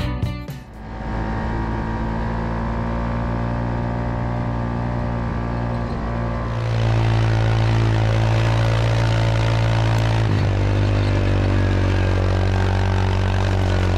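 Yamaha Rhino side-by-side's single-cylinder engine running at a steady cruise on a gravel road. About halfway through it gets louder, with a hiss of tyres on gravel, heard from under the vehicle. Near three-quarters of the way the engine note dips briefly, then settles again.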